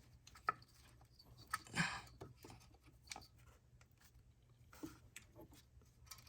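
Scattered light clicks, taps and a brief rustle of parts and tools being handled during reassembly of an engine after a spark plug change.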